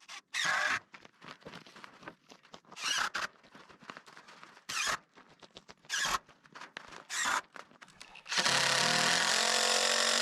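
Power drill driving a screw into wood in one steady run of about two and a half seconds near the end, pulling the screw in. Before it come a few brief, separate noises.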